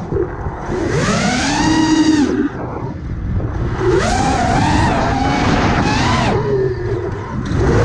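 The brushless motors and propellers of a 5-inch iFlight Nazgul5 FPV quadcopter whine, the pitch climbing and falling several times as the throttle is punched and eased, with a dip near the end before it climbs again.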